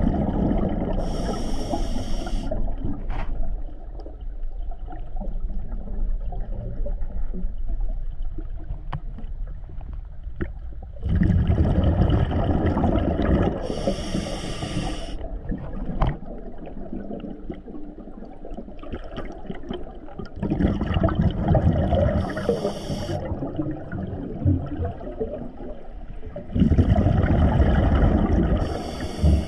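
A scuba diver breathing through a regulator underwater: four breaths, each a burst of low rumbling, gurgling exhaled bubbles with a short sharp hiss of the regulator near its end.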